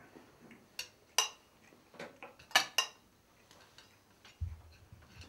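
Cutlery clinking against a plate as someone eats, a string of short, sharp clinks spread through.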